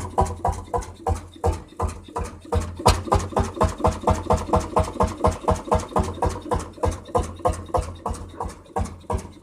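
Vintage tractor engine chugging with a steady, even beat of about five low thuds a second.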